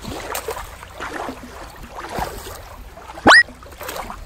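Shallow water lapping and sloshing over rock, with small splashes from toys being handled in it. About three seconds in, a brief, loud squeak sweeps sharply upward in pitch.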